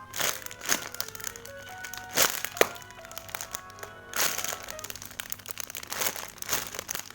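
Light background music with short crinkling crackles over it, about seven in all, the loudest a little after two seconds in.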